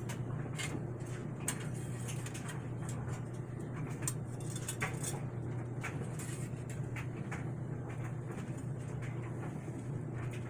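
Scattered light clicks and clinks of kitchen utensils and dishes over a steady low hum.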